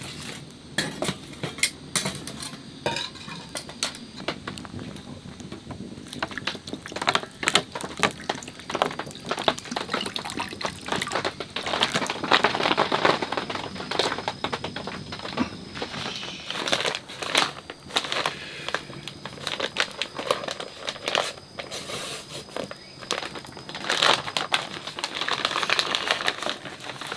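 Metal utensil scraping and clinking in a stainless steel pan of mushroom broth cooking over a wood fire, with the fire crackling. Sharp clicks run throughout, and there is a thicker patch of crackle and sizzle in the middle.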